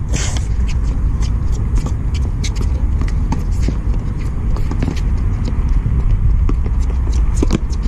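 A tennis rally on a hard court: a loud, close racket-on-ball hit right at the start, then a run of sharper, fainter ball hits and players' footfalls. A steady low rumble lies under it.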